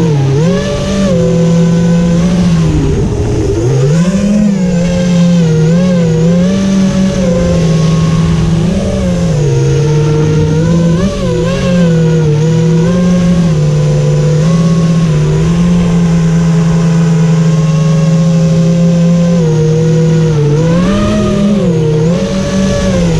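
Self-built FPV quadcopter's brushless motors and propellers whining as heard from the GoPro mounted on it, the pitch rising and falling with quick throttle changes. The pitch holds steadier for several seconds in the second half.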